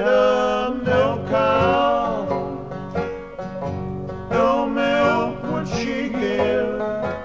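Instrumental passage of a country folk song: plucked string instruments keep a quick rhythm while a melody line bends and slides over them.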